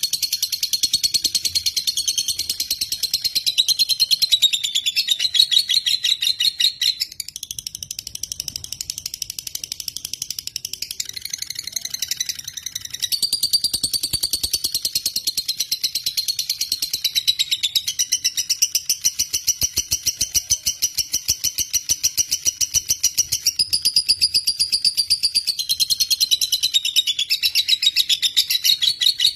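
Lovebird singing a long, unbroken ngekek: a very rapid, high-pitched chattering trill that steps between pitches, softer for several seconds about a quarter of the way in. This is the long trill that keepers play to prompt other lovebirds to sing.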